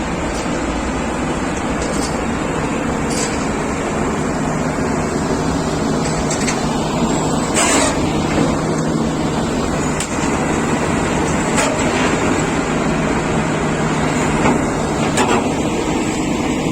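Heavy diesel engine of a SANY SY500H crawler excavator running steadily with a low hum, with a few short sharp knocks along the way, the loudest about halfway through.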